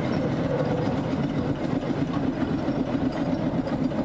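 Fowler B5 steam road locomotive running along a road as it passes close by: a steady, fast mechanical clatter from its engine and motion.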